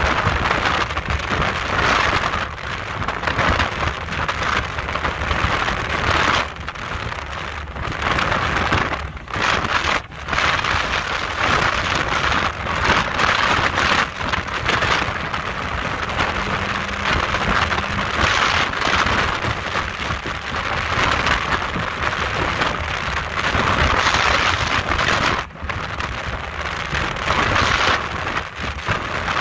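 Wind rushing and buffeting over the microphone on a speedboat running at about 60 mph, rising and falling in gusts, with the boat's engine running low underneath.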